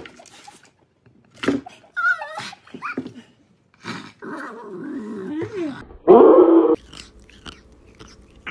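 Small dog growling and snarling, with a short, loud outburst about six seconds in.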